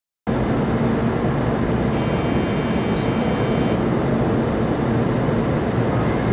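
Steady hum and hiss inside a stationary 800 series Shinkansen car at a station platform, with a brief steady high tone from about two seconds in.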